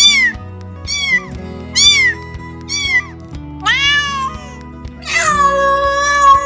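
Domestic cat meowing repeatedly: four short meows about a second apart, then a longer one, then a long drawn-out meow near the end. Background music underneath.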